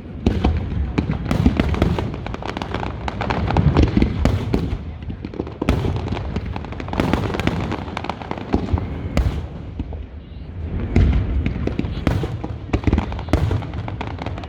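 Fireworks display: a dense run of booms and sharp crackling reports, several a second, over a continuous low rumble and echo.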